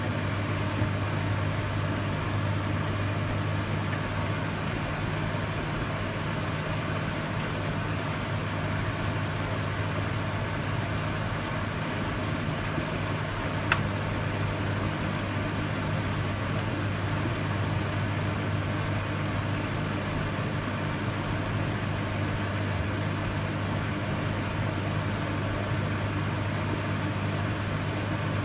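Microwave oven running: a steady low electrical hum with fan noise, unchanging throughout, with one sharp click a little before halfway.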